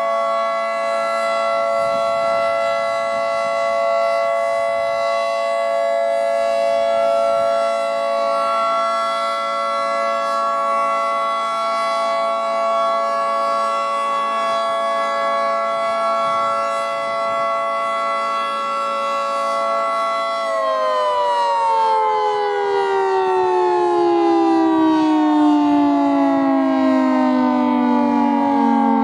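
Federal Signal 2T22B dual-tone warning siren sounding a steady two-tone chord. About twenty seconds in it begins winding down, both tones falling in pitch together.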